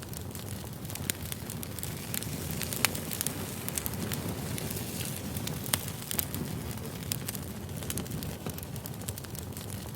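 Firewood burning: a steady low rumble of flames with sharp irregular crackles and pops, the loudest about three seconds in and again near six seconds.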